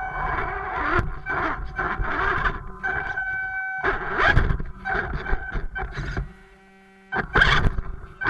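BSD BT1001 RC crawler's small electric motor and gearbox whining in bursts as the throttle is worked, with rough scrabbling noise from the drivetrain and tyres. The sound cuts out for under a second near the end, then picks up again.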